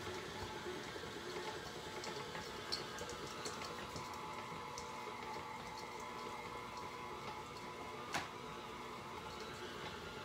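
Electric tilt-head stand mixer running steadily, its beater mixing cookie batter of butter, sugar and flour in a steel bowl, with a sharp click about eight seconds in.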